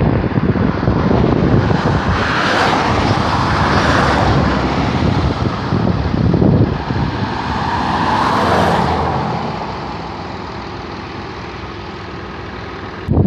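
Loud outdoor rush of wind and road traffic, with two vehicles passing, about two and a half and about eight and a half seconds in. It settles to a steadier, quieter rush near the end.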